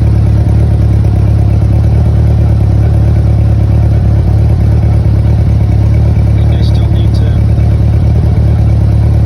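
1984 Honda Goldwing flat-four engine running steadily after its carburetors were cleaned and reinstalled.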